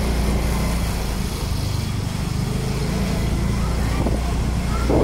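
Small motorbike engine running at low speed, with road and wind noise. A brief louder pitched sound comes near the end.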